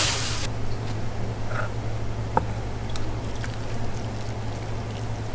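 Steady low hum of kitchen machinery, with a short hiss at the very start and a few light metal clicks of tongs against steel bowls.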